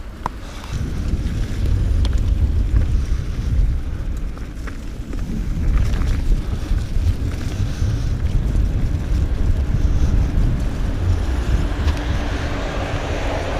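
Wind buffeting a GoPro's microphone while a mountain bike rolls along a snowy trail: a steady low rumble with a rushing haze over it.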